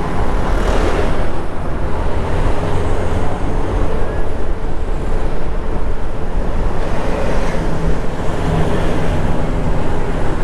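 Wind rushing over the microphone on a moving bus, with the bus's engine running steadily underneath.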